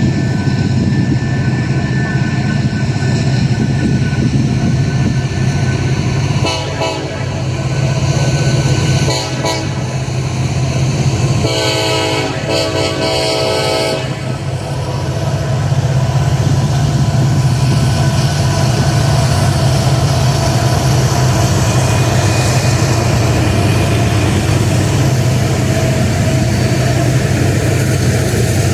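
Norfolk Southern diesel freight locomotives running with a steady low drone as the train works around the curve. A horn chord sounds a few times around the middle, the last blast lasting about two seconds.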